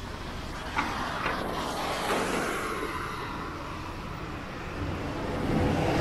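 Street traffic: a car passes, the tyre and engine noise rising and fading over a couple of seconds, and another vehicle approaches near the end.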